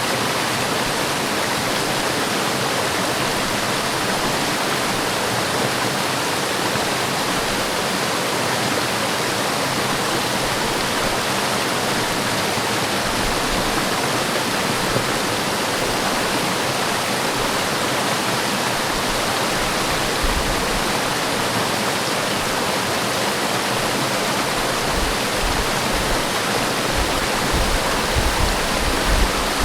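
Forest waterfall rushing steadily, an even roar of falling water, with some low rumbles in the last few seconds.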